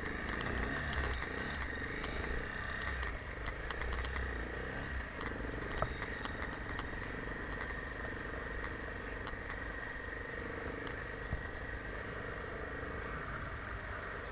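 Enduro motorcycle engine running at low speed, with scattered rattling clicks through roughly the first half.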